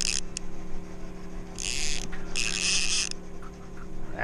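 Baitcasting fishing reel buzzing in three short bursts (one at the start, two more a second and a half in) while a hooked striped bass is fought on a bent rod, over a steady low hum.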